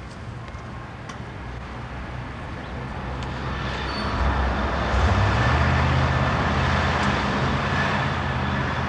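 Motor vehicle driving past on the street, its low engine hum and road noise building up to a loud peak about five seconds in and holding there.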